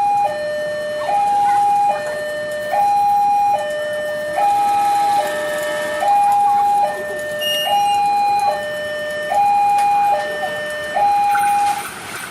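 Railway level-crossing warning alarm sounding, a two-tone signal alternating between a higher and a lower pitch a little under once a second, warning that a train is approaching. It stops shortly before the end.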